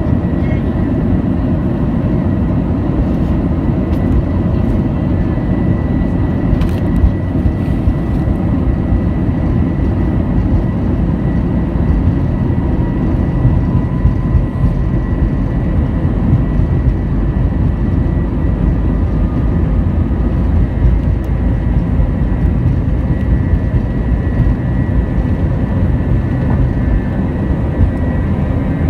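Airbus A321 passenger-cabin noise during takeoff: the loud, steady roar of the jet engines at takeoff thrust with a deep airframe rumble, and a steady high whine over it.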